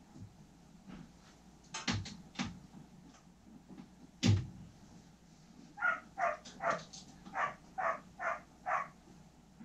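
Hand tools clicking and knocking on the drum sander's metal frame while its chain sprockets are tightened, with one sharp knock near the middle. In the second half a dog barks in a quick, even run of about eight barks.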